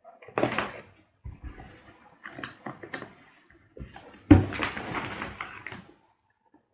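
Cardboard box being cut and torn open by hand: scraping and tearing of tape and cardboard with rustling flaps, and a thump about four seconds in.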